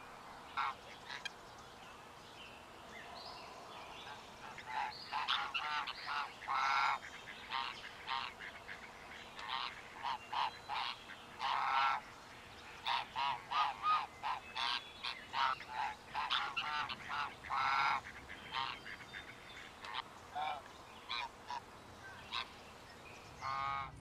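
Geese honking: many short, overlapping calls from a flock, coming thickest through the middle stretch.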